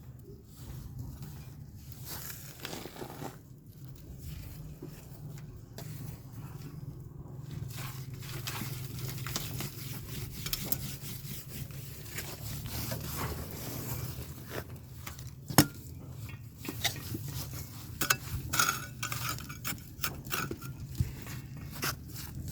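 Scraping and clattering, with scattered sharp knocks that grow more frequent in the second half, over a steady low hum.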